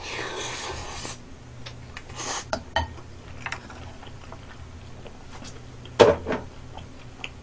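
Eating sounds from a big mouthful of spicy stir-fried gopchang: a noisy slurp as the bite goes in, then chewing with small clicks of metal chopsticks on the pan and dishes, and one sharp tap about six seconds in.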